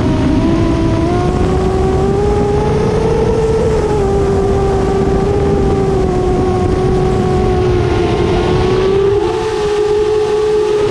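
A 7-inch FPV quadcopter's brushless motors (EMAX ECO II 2807 1500Kv spinning 7-inch three-blade props) whining at cruise throttle. The pitch drifts gently up and down with the throttle. Wind rumbles on the onboard microphone underneath.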